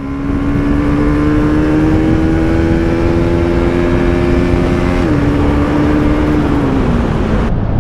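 Bajaj Pulsar NS200's single-cylinder engine pulling under steady throttle while riding. Its note rises slowly for about five seconds, dips briefly, then falls away near the end as the throttle eases, over a steady rush of wind noise.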